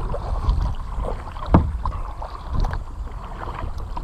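Kayak paddle strokes: the blades of a double-bladed paddle dipping and splashing in the water about once a second, one sharper splash about a second and a half in.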